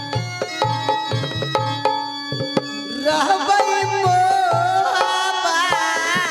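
Live stage music: hand-drum strokes in a steady rhythm over held sustained tones. About three seconds in, a loud wavering melody line with vibrato comes in over the drumming.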